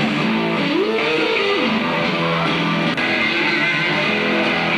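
Electric guitar played live, with sustained notes and one note gliding up and back down about a second in.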